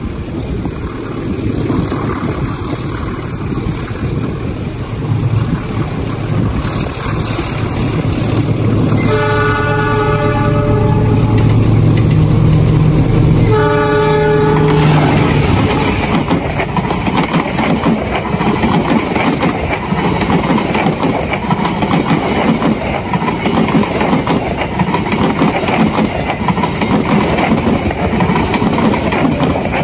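Diesel locomotive of an Indonesian express passenger train approaching with its engine humming. It sounds its horn in a long blast about 9 seconds in, then a short second blast about 14 seconds in. It then passes close by, followed by the loud steady rumble and wheel clatter of its coaches running over the rails.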